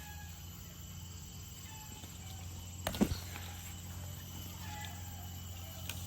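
A domestic cat meowing over a low steady hum, with one sharp knock about three seconds in.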